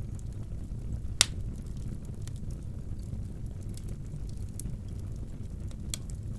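Wood fire burning in a fireplace: a steady low rumble with scattered small crackles, and one sharp, loud crack about a second in.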